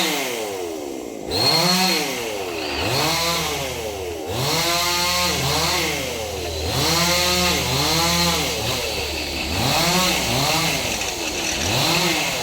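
Two-stroke chainsaw revved up and down again and again, its engine pitch rising and falling every second or two.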